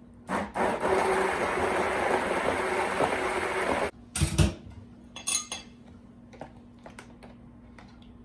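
Stick blender whirring through the dressing ingredients for about three and a half seconds, then cut off abruptly. A couple of loud knocks and a few clinks of utensils against the container follow.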